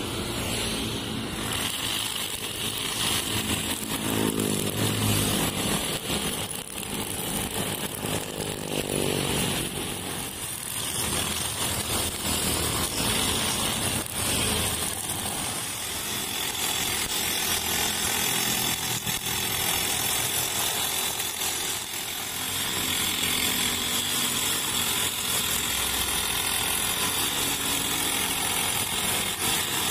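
Honda GX35 four-stroke engine of a backpack brush cutter running steadily at high revs while its 2.4 mm nylon line whips through grass and weeds along a kerb.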